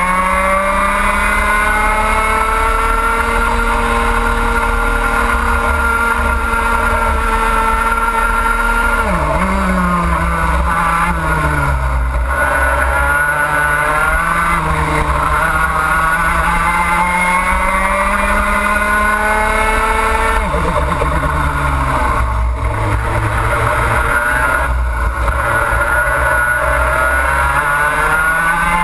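Two-stroke racing kart engine heard onboard at full throttle. Its pitch climbs steadily on the straights and drops sharply as the driver brakes for corners: about nine seconds in and again about twenty seconds in, each time winding back up.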